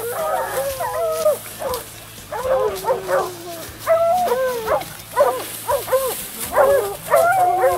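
A pack of hunting hounds baying and barking at a leopard they have brought to bay, many overlapping calls in quick succession.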